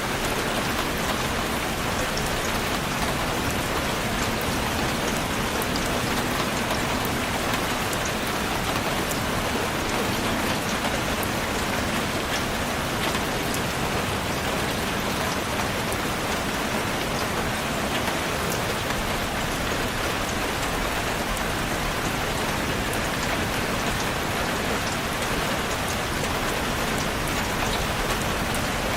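Steady, heavy rain falling and pattering on a surface, a dense even hiss with scattered sharp drop ticks.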